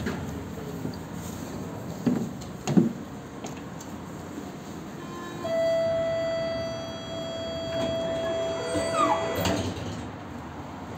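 Tatra T5C5K tram's door-closing warning signal: one steady, buzzy tone held for about four seconds midway, over the tram's running rumble. A couple of knocks come a few seconds before it.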